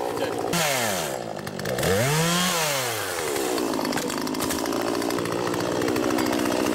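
Poulan Pro two-stroke chainsaw engine: it drops from high revs about half a second in, is revved up and back down again around two seconds, then runs steadily at speed for the rest of the time.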